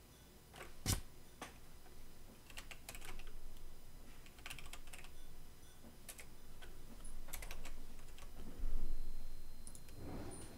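Computer keyboard being typed on in short, irregular runs of keystrokes, with a dull low bump about nine seconds in.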